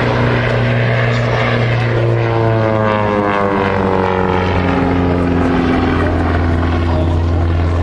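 Propeller airplane flying past, its engine drone sliding down in pitch during the middle seconds as it passes.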